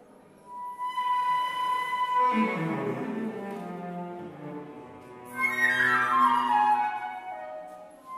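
A flute and a cello playing contemporary chamber music: the flute holds a single high note about a second in, then both instruments play falling phrases together, fading out near the end.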